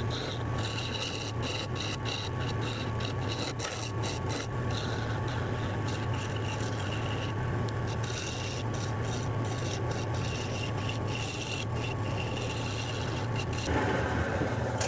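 Wood lathe running with a gouge cutting into the spinning wood blank of a spindle being roughed out: a steady motor hum under a continuous rasping scrape of the tool on the wood.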